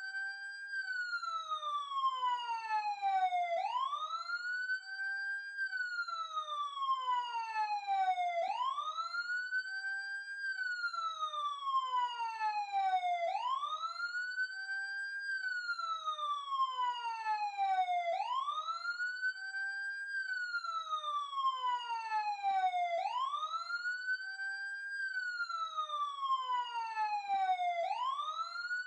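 Emergency siren sounding a continuous wail. Each cycle rises quickly in pitch, holds briefly at the top and then glides slowly down, repeating about every five seconds.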